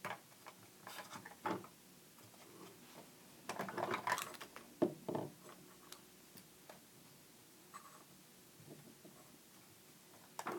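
Small plastic toys being handled: scattered light clicks and rattles of hard plastic pieces, busiest about four seconds in.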